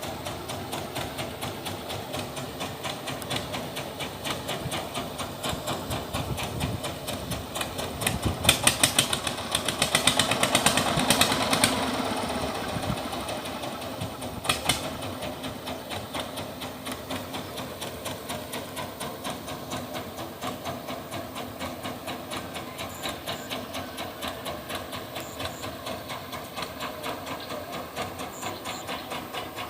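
Engine running with a steady, evenly repeating pulse. It gets louder with a clatter of knocks about eight to twelve seconds in, and there is a single sharp knock about halfway through.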